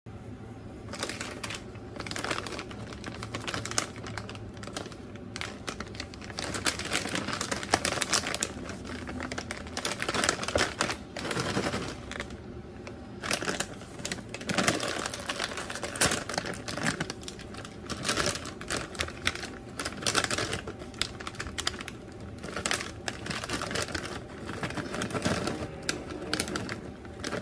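Plastic snack bag crinkling and crackling in irregular bursts as it is handled and torn open by hand. Near the end the honey cheese puffs rustle as they are shaken out of the bag into a hand.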